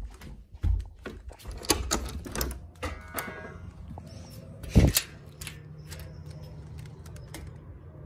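Handling clicks and knocks, then a sliding screen door rattling along its track and banging loudly about five seconds in. A steady low hum follows.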